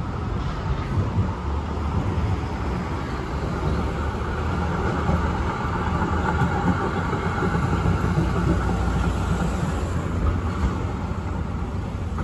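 A1-class tram passing, its running gear on the rails giving a steady rumble and hum that grows through the middle and eases near the end, mixed with the noise of road traffic.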